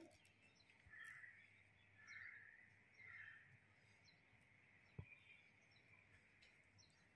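Near silence: faint room tone, with three faint bird-like chirps about a second apart in the first few seconds and a single soft click about five seconds in.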